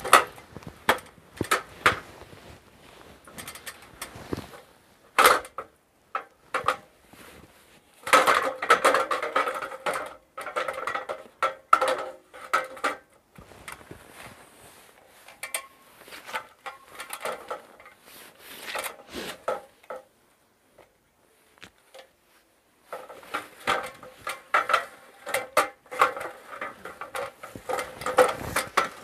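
Irregular clicks and knocks from hard objects being handled, with two longer stretches of dense rattling clatter and a short quiet gap a few seconds before the second stretch.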